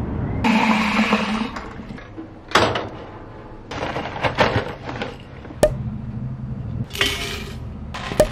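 Kitchen handling sounds of making a herbal infusion: a paper packet of dried hibiscus rustling as it is opened, a few sharp clicks and taps, and water poured onto the dried flowers in a glass pot near the end.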